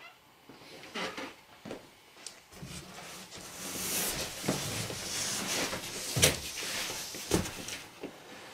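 Footsteps and small knocks, then a tall cardboard appliance box being handled and shifted across the floor: several seconds of scraping and rustling, with a few sharp knocks near the end.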